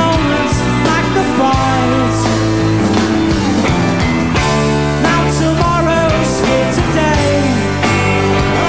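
Britpop band playing live with guitars, bass and drums, a continuous rock song with a steady beat.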